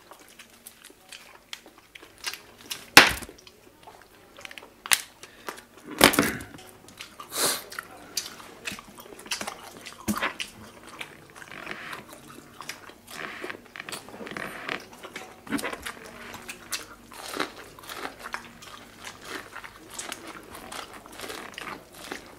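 Close-up mukbang eating sounds: chewing, biting and crunching on seafood-boil shrimp, crab and corn on the cob. Scattered sharp clicks and smacks come throughout, the loudest about three and six seconds in.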